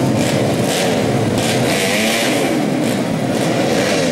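Several modified 125 cc four-stroke underbone (bebek) motorcycles revving their engines together at a motocross start line, overlapping pitches rising and falling.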